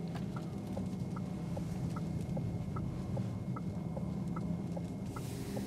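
Turn-signal indicator ticking inside the VW ID.3's cabin: a higher tick and a lower tock alternate, about one click every 0.4 s. Under it is the steady low rumble of road and tyre noise from the electric car driving slowly.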